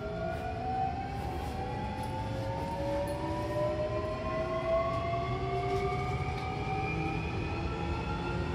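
Hankyu electric train's traction motors whining from inside the passenger car, several tones rising slowly and steadily in pitch as the train accelerates, over a low rumble of the running car.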